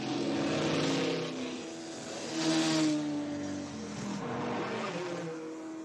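Several cars speeding past one after another, their engines running hard. Each pass brings a rush of noise and an engine note that drops as the car goes by, and the loudest pass comes about halfway through.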